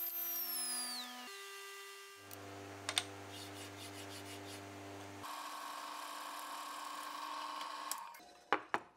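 Background music of sustained held tones that change every one to three seconds, with a few sharp knocks near the end.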